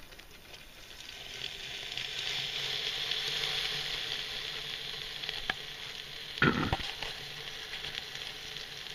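Chicken legs and a chicken back sizzling as they fry in the tray of an evacuated-tube solar oven, just put in hot: a steady hiss that swells over the first couple of seconds and then holds. About six and a half seconds in, a short burst of a person's voice sounds over it.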